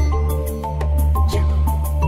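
Background music: a melody of held notes over a steady bass, with light regular percussion.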